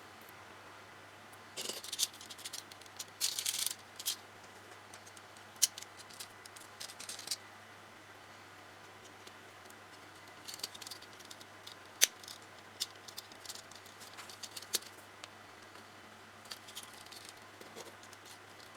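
Small plastic model-car parts being handled and fitted by hand: irregular sharp clicks and taps with short rustles, the loudest two single clicks, over a faint steady low hum.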